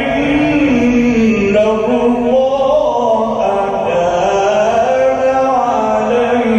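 A man reciting the Quran in a melodic tajweed style, drawing out long notes that glide slowly up and down without a break.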